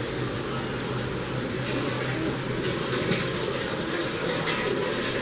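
Steady background hubbub of a busy indoor show hall: a continuous murmur of many people and general noise with a low hum underneath, no single voice standing out.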